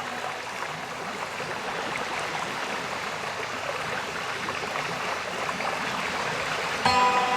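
Steady, even rush of a cascading waterfall. A sustained background music chord comes in sharply near the end.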